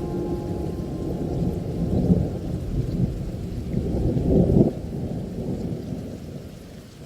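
Rolling thunder with rain, a low rumble that swells louder about two seconds in and again at four and a half seconds, then fades away near the end.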